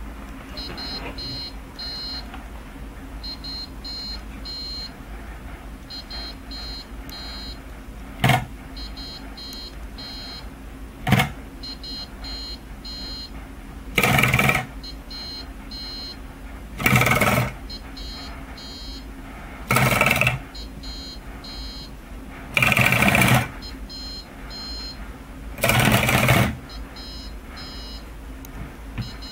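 The robot's two small DC motors with eccentric weights spin up in brief buzzing rattles, each about half a second, seven times at roughly three-second intervals, shaking the robot on its wire legs. Under them, high electronic beeps in groups of three repeat every couple of seconds.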